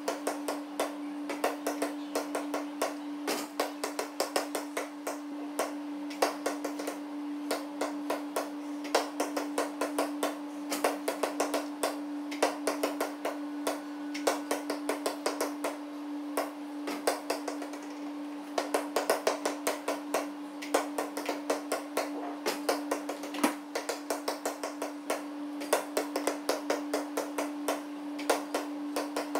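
A basketball bouncing on a gym floor and striking the rim during free-throw shooting: many sharp, echoing knocks in quick runs over a steady electrical hum.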